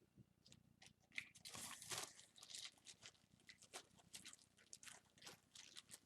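Faint, irregular crinkling and clicking of small resin model-kit parts being handled, busiest about one and a half to two seconds in.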